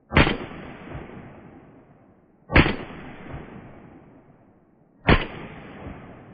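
Three single shots from a Soviet Makarov PM pistol firing 9×18mm Makarov rounds, spaced about two and a half seconds apart. Each crack is followed by a long rolling echo that fades over about two seconds.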